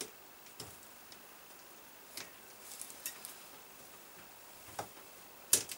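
Scattered small metallic clicks and taps of pliers working an E-clip off the main power-valve rod of a Kawasaki KX250's KIPS mechanism. The loudest, a sharp double click near the end, is the clip coming off the rod.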